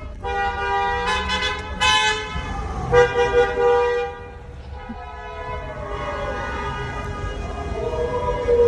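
Several car horns honking in overlapping blasts of different pitches for about the first four seconds. After that, a long tone slides down in pitch.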